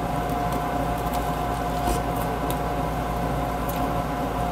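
Portable camping air conditioner running steadily, a constant hum with a thin steady whine, with a few faint clicks over it.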